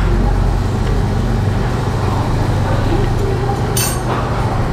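Steady low hum and rumble of a Korean barbecue restaurant's background machinery, with a short clink near the end.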